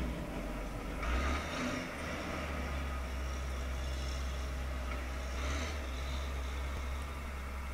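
Engine of a yellow snow-clearing machine running at a distance, a steady low rumble, with hissing swells about a second in and again after five seconds.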